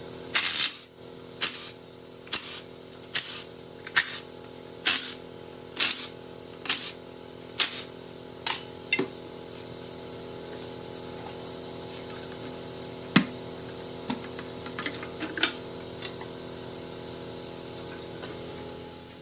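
A series of sharp knocks, about one a second for the first nine seconds, then a few scattered softer knocks, over a steady hum.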